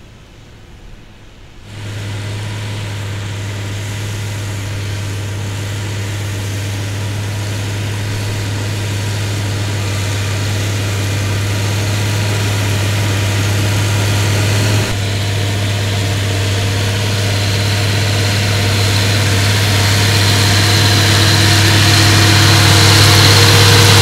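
Massey Ferguson 399 tractor's six-cylinder diesel engine running steadily under load, pulling a reversible plough: a steady low hum. It is faint at first, jumps louder about two seconds in, then keeps growing louder as the tractor comes closer.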